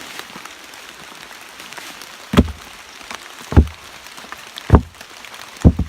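Four dull, heavy knocks about a second apart, each dying away quickly, over a faint background.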